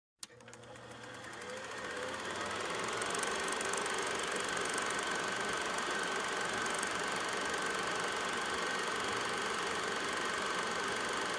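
A single click, then a steady mechanical running noise with a fast, fine rattle and a thin high hum, fading in over the first two or three seconds and then holding level.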